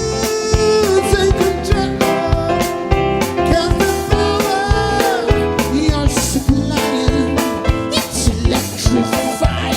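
A 1980s pop song playing, with a steady drum-kit beat under sustained chords.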